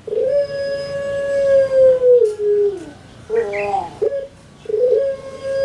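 Ringneck dove (puter) giving its long drawn-out 'pelung' coo: a long held note that falls in pitch at its end, a quick cluster of short notes about halfway through, then another long held note starting near the end.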